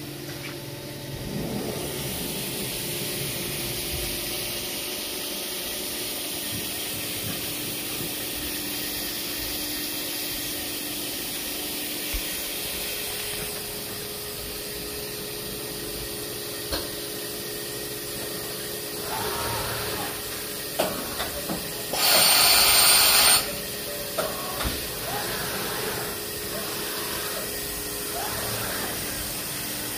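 XYZ UMC 5X five-axis vertical machining centre running through its axis moves, the spindle head travelling and the trunnion table tilting, with a steady hum and high hiss. About two-thirds of the way through, a loud hiss lasts just over a second, with a few sharp clicks around it.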